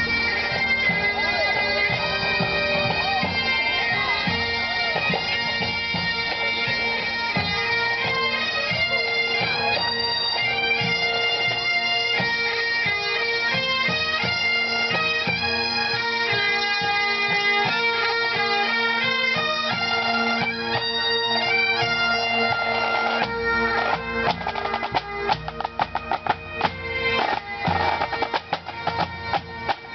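Bagpipes playing a tune over their steady drones, with drums beneath, as a pipe band would. From about two-thirds of the way through, the sound turns choppy, rapidly cutting in and out.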